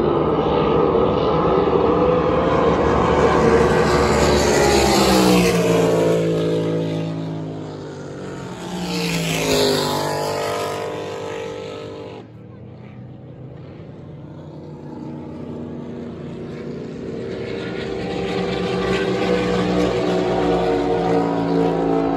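High-powered engines of unlimited-class racing powerboats running flat out. Twice, a few seconds apart, a boat passes and its engine pitch falls as it goes by. Just after the middle the sound drops suddenly, then builds again as more boats come on.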